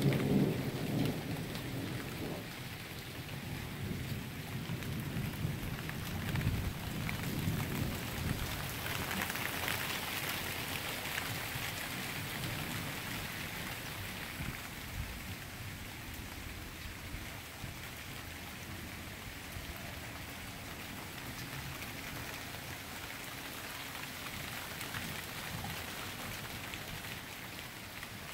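Steady rain falling on pavement and lawns, with thunder rumbling low through the first several seconds before dying away, leaving the rain alone.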